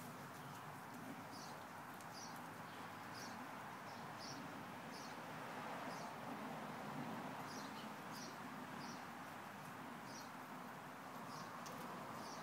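A bird chirping repeatedly, short high chirps every half-second to a second, over steady outdoor background noise.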